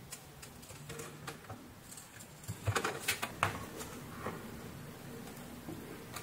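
Light handling noise: a few small clicks and rustles as a blender's control circuit board and its wire connectors are handled, most of them about two and a half to three and a half seconds in.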